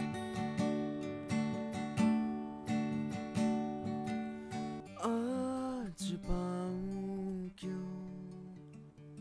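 Acoustic guitar playing an instrumental passage: chords strummed at an even pace, then from about five seconds in a few held notes that ring on and fade away.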